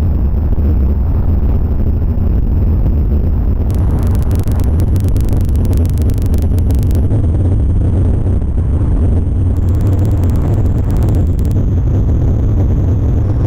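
A loud, steady low rumble with no distinct events in it.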